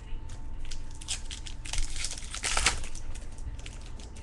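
Crinkling and rustling of a foil trading-card pack wrapper and the cards in it being handled, in a run of short rustles that is busiest and loudest in the middle.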